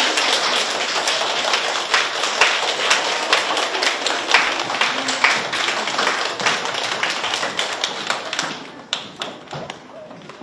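Audience applauding, a dense patter of hand claps that thins to a few scattered claps and dies away near the end.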